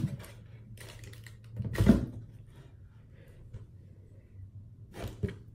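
Plastic bath-product bottles and packaging being handled and rummaged through: a few scattered clicks and knocks, the loudest about two seconds in and another near the end.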